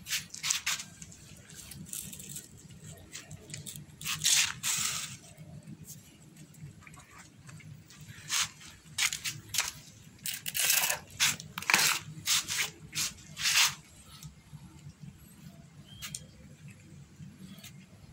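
Kittens feeding at a black plastic food tray on a tile floor: irregular short crackling and scraping bursts, thickest about four to five seconds in and again from about eight to fourteen seconds in, over a low steady hum.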